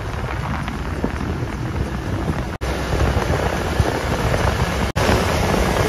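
Wind buffeting a microphone held out of the window of a moving truck, over steady road and engine rumble. The sound cuts out for an instant twice.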